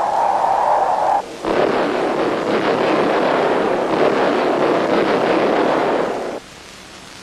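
A steady hissing noise cuts off a little over a second in. After a short gap comes the loud, dense roar of a guided bomb exploding on a ground target, lasting about five seconds and cutting off abruptly near the end.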